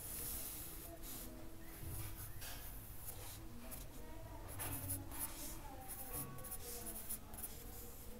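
Graphite pencil scratching on paper in a series of short drawing strokes, quicker and closer together in the second half.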